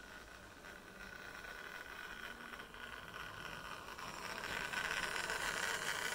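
Model railway diesel shunter's electric motor whining steadily as it pulls a train of wagons over the track, with the rattle of wheels on the rails; it grows louder as the train approaches and is loudest near the end.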